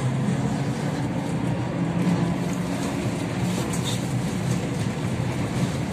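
Cabin noise of a Kyiv-12.03 trolleybus under way: a steady rumble of tyres and running gear with a low drivetrain hum.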